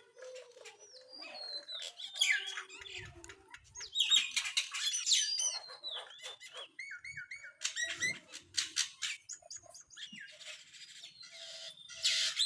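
Several birds chattering together: dense overlapping chirps, whistled glides and raspy calls, loudest in bursts about four to five seconds in and again near the end.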